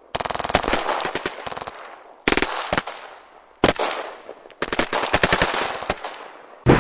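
Automatic gunfire in four separate bursts of rapid shots, each trailing off in an echo, with short pauses between them. A loud deep rumble starts right at the end.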